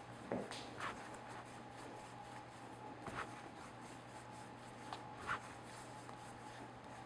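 Hands rolling a rope of soft pretzel dough back and forth on a granite countertop: faint rubbing with a few brief soft taps, over a steady low hum.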